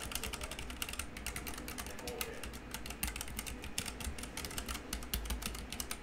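Fast, continuous typing on a Keychron K3 low-profile mechanical keyboard fitted with red switches: a dense patter of key clicks.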